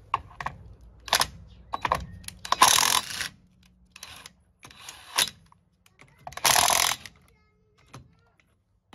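Cordless impact wrench hammering on a van's steel-wheel lug nuts to loosen them: several separate bursts of rattling, the longest just under a second, with short pauses between nuts.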